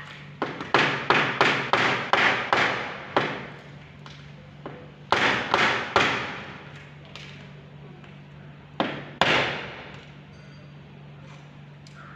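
Hammer blows on a UPVC window frame during fitting: a quick run of about nine strikes in the first three seconds, three more around five seconds in, and two near nine seconds. A faint steady low hum runs underneath.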